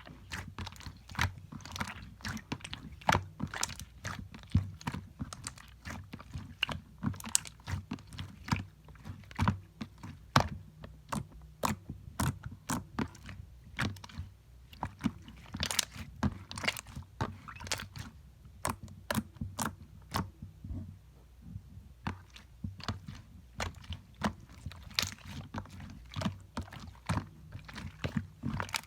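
Slime being squished, pressed and stretched by hand, giving a dense, irregular run of sticky clicks, crackles and small pops, several a second.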